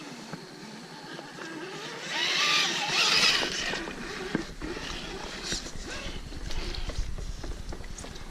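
Electric motor of a scale RC crawler whining up and down in pitch as the throttle is worked, with a loud churning splash about two seconds in as it drives through muddy water. Scattered clicks and crackles follow as it crawls on.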